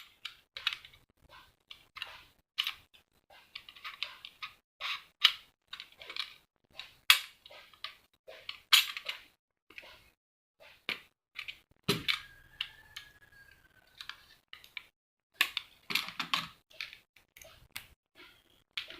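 Hand tools clicking, snipping and scraping irregularly against the metal casing of a fake 18650 lithium-ion cell as it is broken open, with a thin squeal for about two seconds midway.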